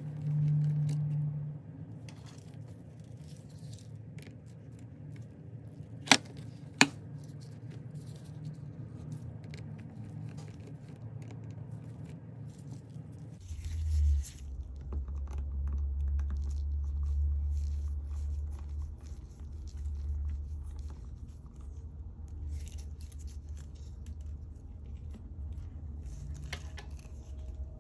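Small handling noises from working on an iPod Classic during disassembly, with two sharp clicks close together about six seconds in. A steady low hum comes in about halfway.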